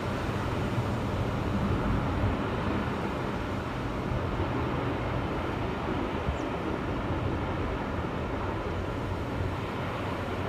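Steady low roar of storm wind, heaviest in the deep rumble, without a break or change.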